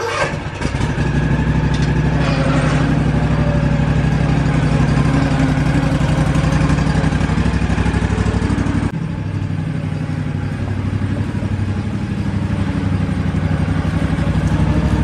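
Cub Cadet Ultima ZT1 zero-turn mower's engine running at mowing speed as the mower drives across the lawn. It comes in suddenly at the start, eases in loudness about nine seconds in, then runs steady again.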